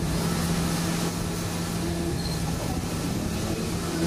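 Large-format flex banner printer running as it prints: a steady mechanical hum with a constant low tone.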